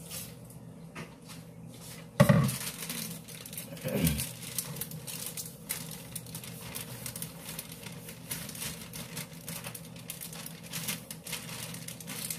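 Kitchen handling noises: dishes knocked against the counter, sharply about two seconds in and again around four seconds, then a paper bag of cake mix rustling as its contents are shaken into a mixing bowl.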